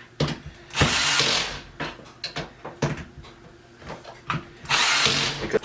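Power drill driving screws through caster plates into the wood in two short bursts, about a second in and near the end, with clicks and knocks of the parts being handled in between.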